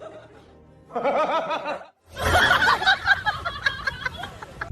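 People laughing: a short run of chuckles about a second in, then louder, fuller laughter from about two seconds in.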